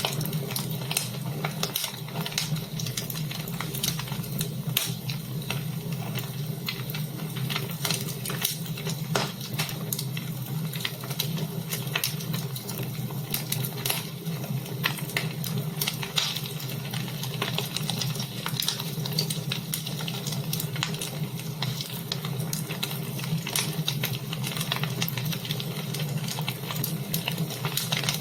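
Fire burning in a fireplace, crackling with frequent sharp pops over a steady low rumble.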